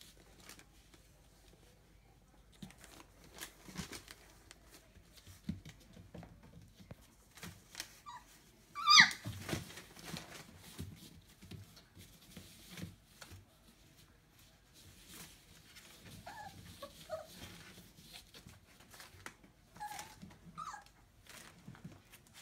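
Young Entlebucher Mountain Dog puppies whimpering and squeaking: one sharp high yelp that falls in pitch about nine seconds in is the loudest sound, with softer short squeaks later. Scattered small clicks and knocks run throughout.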